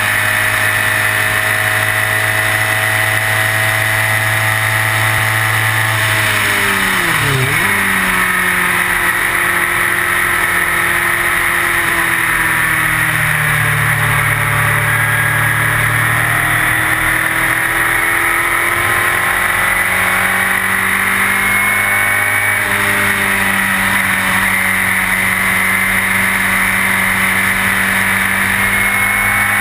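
Onboard sound of a March 83S Sports 2000 race car's Ford 2.0-litre four-cylinder engine at racing speed, with wind noise around the open cockpit. The pitch dips sharply with downshifts about seven seconds in, then climbs again under acceleration, with gear changes near thirteen and twenty-two seconds.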